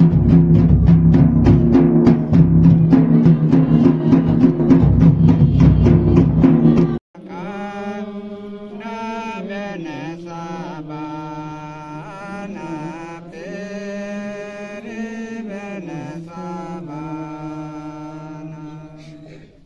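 A large barrel drum beaten in a fast, steady rhythm, cut off abruptly about seven seconds in. A slow, chant-like song follows, sung with long held notes that slide up and down in pitch.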